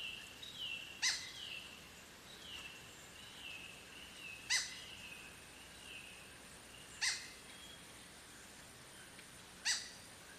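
Rainforest birds calling: a run of short down-slurred whistled notes, cut across four times, about every two and a half seconds, by a loud, sharp, very short call, over a thin steady high insect whine.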